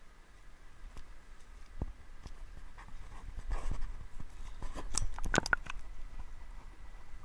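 Footsteps in rubber boots on a muddy, brushy creek bank, uneven knocks and scuffs, with a quick cluster of sharp clicks and knocks about five seconds in.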